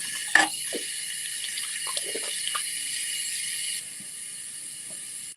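Tap water running into a sink as a steady hiss that starts and stops abruptly, dropping a little in level near the end.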